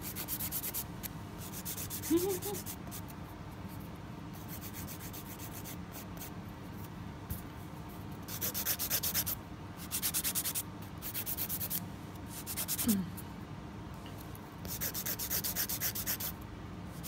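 Hand nail file scraping over acrylic nails in quick back-and-forth strokes, coming in several bursts with short pauses between them.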